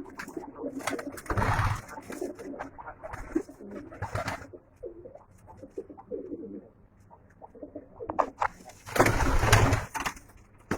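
A loft of domestic pigeons cooing, many low, wavering coos overlapping. Several short bursts of rustling noise break in, the loudest lasting about a second near the end.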